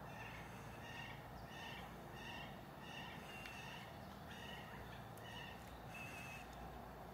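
A bird calling over and over, about ten short, high calls roughly every half second, with a brief pause in the middle and a slightly longer call near the end, over a faint low outdoor rumble.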